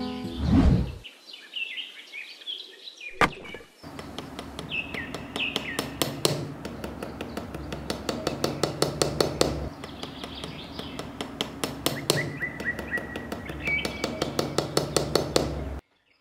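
Small hammer tapping a thin post into the ground, light sharp taps several a second, with birds chirping over them.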